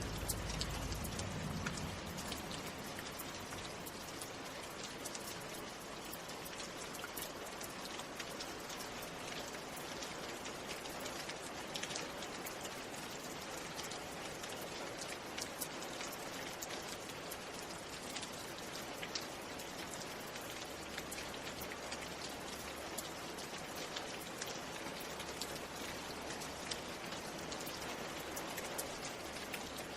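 Steady rain falling on a surface: a continuous hiss dotted with many small drop ticks, with a brief low rumble in the first couple of seconds.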